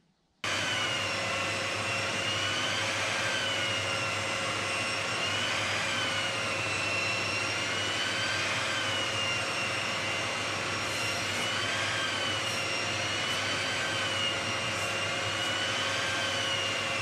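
Handheld power tool with a dust extractor running as it is worked along an oak rafter: a steady motor whine that rises and falls slightly as the tool is pushed under load, over the extractor's even hum.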